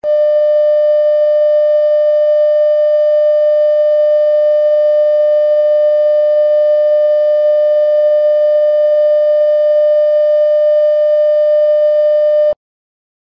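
Steady, loud electronic tone at one unchanging pitch with overtones, held for about twelve seconds and cut off abruptly near the end: a broadcast sign-off tone after the station goes off the air.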